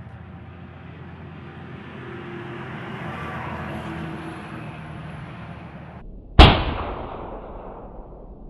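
A single rifle shot from a Mirage ULR long-range rifle in 7mm-300 Winchester Magnum, about six seconds in, with its report trailing off over a second or so. Before it there is only steady background noise, which cuts off abruptly just before the shot.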